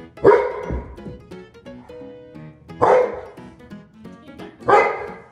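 A large dog barking loudly three times, the first bark the longest, the next two about two seconds apart.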